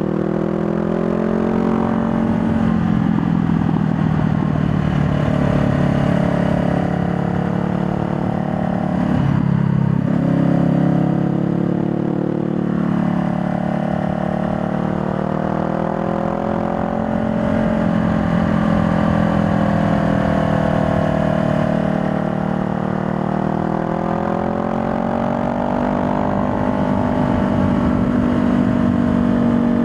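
2020 Honda Rebel 500's parallel-twin engine under way, its pitch rising and falling several times as it accelerates and eases off, with a brief dip about nine seconds in.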